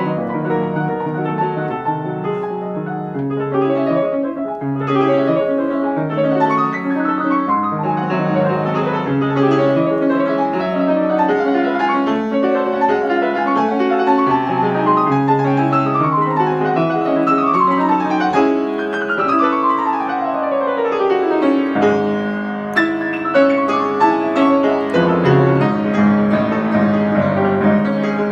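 A 1904 Steinway & Sons Model B grand piano, recently rebuilt, being played: a continuous piece with chords over a full bass and several fast descending runs about halfway through.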